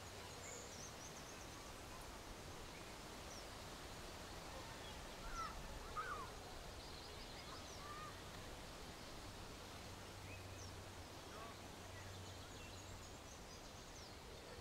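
Faint outdoor nature ambience with scattered short bird calls and chirps, a couple of louder gliding calls about five to six seconds in.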